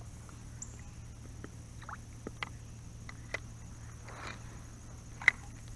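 Kayak being paddled: quiet paddle strokes in the water and a few light knocks against the hull, the sharpest about five seconds in.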